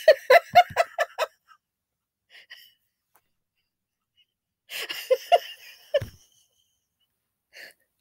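A woman laughing in a quick run of evenly spaced ha-ha pulses, then a second, shorter laugh about five seconds in.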